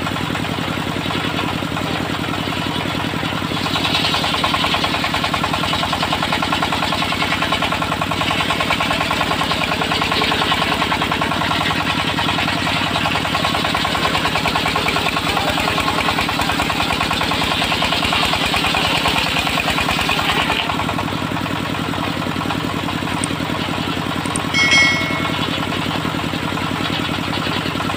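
Engine of a homemade circular sawmill running steadily. The blade cuts through a log from about four seconds in until about twenty seconds, then spins free. A brief high-pitched squeak comes near the end.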